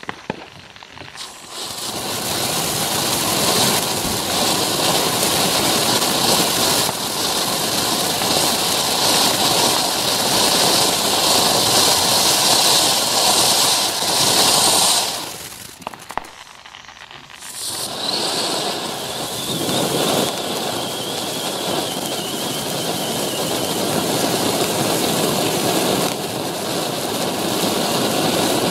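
Happy Family JL22210F 'Game On' ground fountain firework spraying sparks with a steady hiss, after a few fuse crackles at the start. The hiss dies away for about two seconds around the middle as one effect gives way to the next, then picks up again and runs on.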